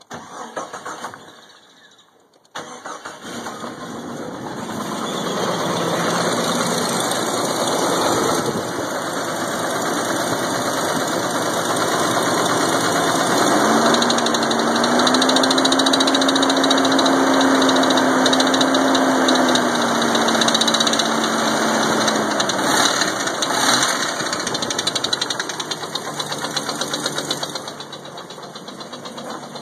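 1999 Jeep Cherokee XJ's 4.0-litre straight-six is cranked and catches about two and a half seconds in, then runs with a tapping knock from a broken piston skirt. A steady tone comes in over the engine for several seconds around the middle.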